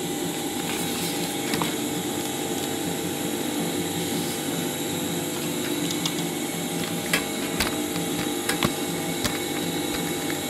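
Industrial sewing machine's motor humming steadily while the machine is not yet stitching, with a few scattered light clicks.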